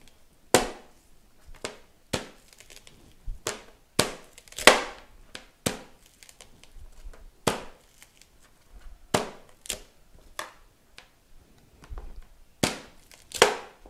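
A large kitchen knife chopping a whole ear of corn into rounds, the blade cracking through the cob and knocking on a plastic cutting board: about a dozen sharp chops at uneven intervals.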